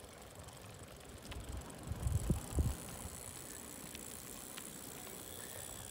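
Folding bicycles rolling along a wet tarmac road: steady tyre noise with a few faint clicks, and wind rumbling on the microphone in a short loud patch about two seconds in.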